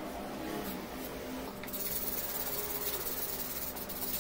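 Hand-sanding a wooden knife part with sandpaper: from a little under two seconds in, a steady, scratchy rubbing hiss of abrasive paper on wood. Lighter tool work on the wood comes before it.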